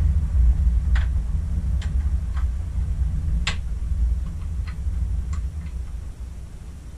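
Low, rough rumble of wind buffeting the microphone, with scattered light clicks and ticks, about one every half-second to second, as a rifle is handled in a metal hunting blind.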